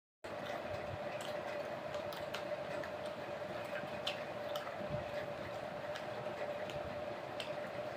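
Close eating sounds: scattered small clicks and smacks of chewing and of fingers and a stick skewer working food on a plate, over a steady hum with a hiss.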